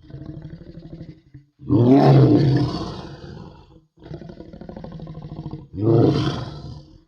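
Crocodilian growling roars: low pulsing growls, with two loud roars about two seconds in and about six seconds in. The segments start and stop abruptly.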